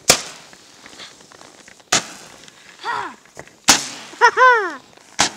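New Year's Eve fireworks: four sharp firecracker bangs, one about every second and a half to two seconds. Between them come a couple of short whistle-like tones that glide up and then down.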